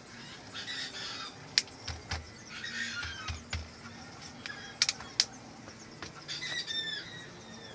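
Sharp plastic clicks and dull knocks of a PVC pipe frame being handled and tapped on concrete, with a quick cluster of clicks about five seconds in. Short descending bird chirps come three times.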